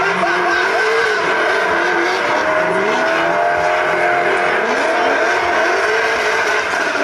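Two drift cars sliding sideways, their engines revving up and down over a continuous tyre squeal.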